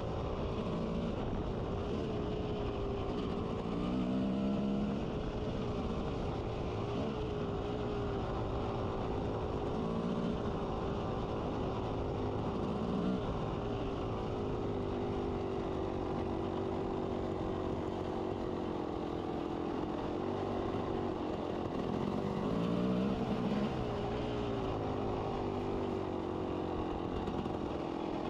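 1992 Kawasaki KX250's single-cylinder two-stroke engine running under way, its pitch wavering with the throttle, with brief swells about four seconds in and again near the end.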